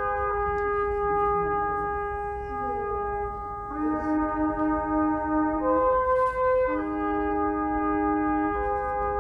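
Slow, solemn memorial music of held wind-instrument chords, the chord changing every second or few, accompanying a silent bowed tribute. A low rumble of wind on the microphone runs underneath.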